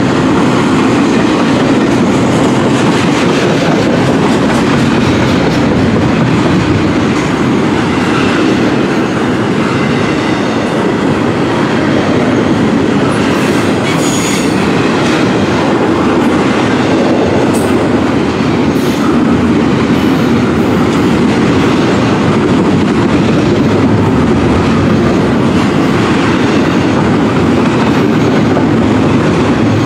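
Double-stack intermodal freight train's well cars rolling steadily past close by: a continuous rumble of wheels on rail, with a few brief high squeaks about halfway through.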